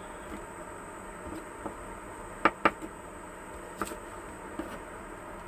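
Kitchen knife cutting green onion on a wooden cutting board: a few sharp knocks, the two loudest close together about two and a half seconds in, with fainter taps around them.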